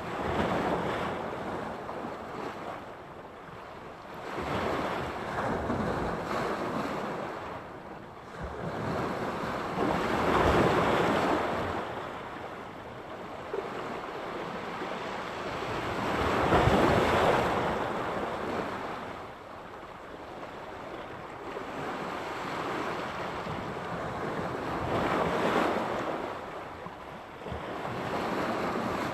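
Sea surf: waves breaking on the shore, the sound swelling and fading every several seconds, with the loudest breakers about ten and seventeen seconds in.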